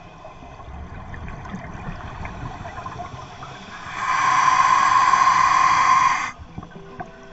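Underwater scuba noise: low rumbling bubbles, then a loud steady humming tone for about two seconds, starting a little past halfway and cutting off suddenly.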